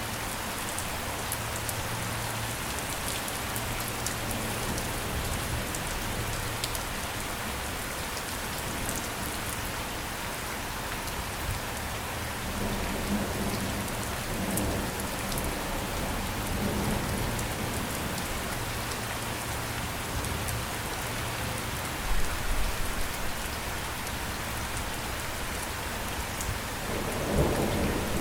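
Steady rain falling and pattering on a surface, with scattered drop ticks and low rumbles of thunder, the loudest rolls coming about three-quarters of the way through and again near the end.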